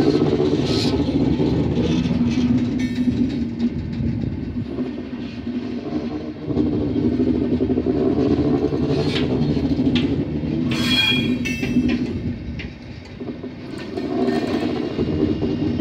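Intercity passenger coaches rolling past on the track: a steady, dense rumble of wheels on rails, with a brief high squeal about two-thirds of the way through. It dips for a moment, then swells again as the locomotive at the rear of the train passes near the end.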